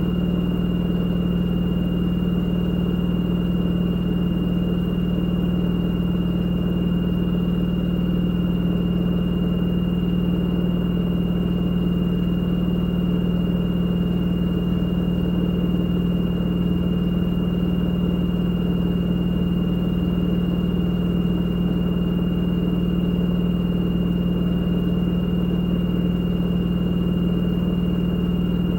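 LG F2DR5S8S6W direct-drive washing machine on its spin cycle, the drum spinning at a constant speed. It makes a steady hum with a thin high whine over it, neither rising nor falling.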